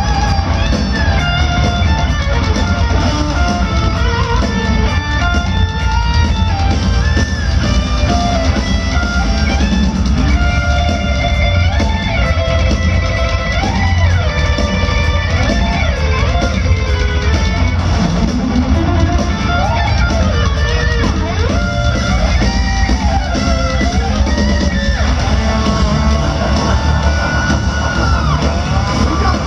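Heavy metal band playing live through an arena PA. A lead electric guitar plays bending, sliding notes over steady drums and bass, with no singing.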